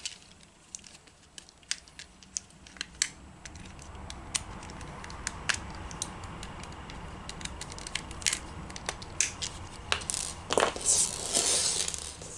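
Small plastic clicks and scraping as an Xbox Elite controller's plastic shell is handled and worked open, with a denser scraping rustle near the end.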